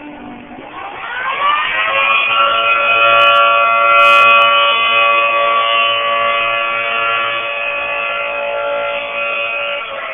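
Outdoor civil-defense tornado siren sounding its weekly test: it winds up in pitch over the first two seconds, then holds a steady, loud multi-tone pitch that swells about four seconds in and slowly eases.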